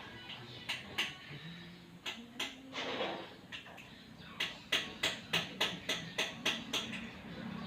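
Sharp knocks or taps: a few scattered ones, then a quick even run of about ten at roughly four a second in the second half.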